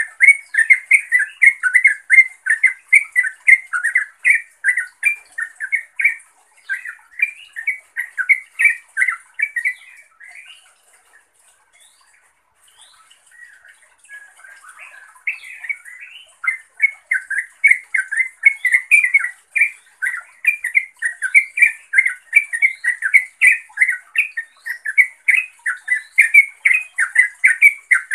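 Yellow-vented bulbul (trucukan) calling to a rival or companion in a long run of short, quick chattering notes, several a second. The calls break off for a few seconds about ten seconds in, then start again.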